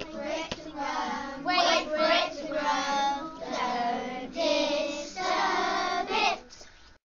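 A group of young children singing a song together in short phrases. The singing stops just before the end.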